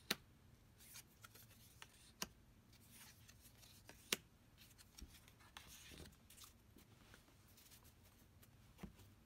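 Tarot cards being picked up and laid down on a wooden table: faint taps and slides of card stock, with a few sharper clicks, the loudest about four seconds in.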